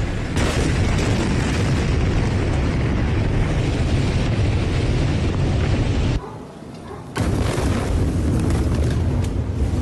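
The Beirut port explosion heard through amateur phone recordings: a loud, continuous low rumble with noise spread across all pitches. About six seconds in it drops to a much quieter sound for about a second, then comes back.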